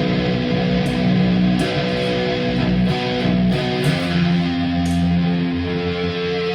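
Schecter Apocalypse C-7 FR-S seven-string electric guitar played through heavy distortion, a metal riff of held notes changing about every half second, picked up raw by a camera microphone.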